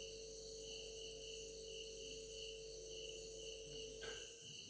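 Faint high-pitched insect chirping in regular pulses, about two a second, over a steady low hum that fades out near the end.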